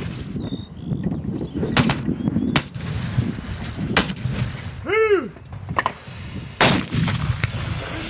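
120 mm towed mortars of two platoons firing in turn: a string of sharp blasts, the loudest about six and a half seconds in, over a continuous low rumble of distant rounds and echo. A short whistle rises and falls about five seconds in.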